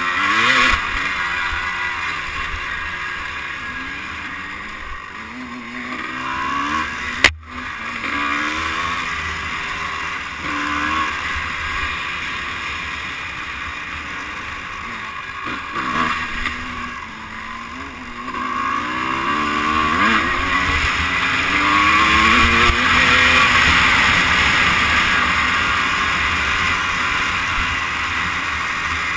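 Two-stroke dirt bike engine under way, revving up and down as the throttle is opened and rolled off on a dirt trail, heard from a camera mounted on the bike. A single sharp knock about seven seconds in, and the engine runs hardest about two-thirds of the way through.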